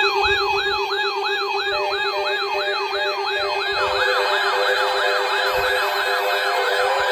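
Electronic siren-style alert tones from weather alert receivers, sounding for an incoming tornado watch. A fast up-and-down yelp repeats about three times a second over a steady low tone, and a second yelping siren joins about four seconds in.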